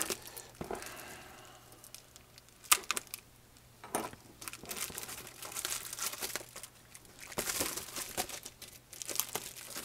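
Plastic packaging, bubble wrap and a clear plastic bag, crinkling and crackling in irregular bursts as a bubble-wrapped circuit board is handled and unwrapped. One sharp crackle stands out about three seconds in.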